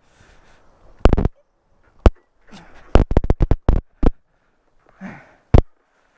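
Motorcycle pushed by hand with its engine off: a loud, irregular string of sharp clicks and knocks, bunched around three seconds in, with faint breathy puffs between them.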